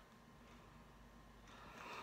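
Near silence: room tone, with a faint soft hiss swelling near the end.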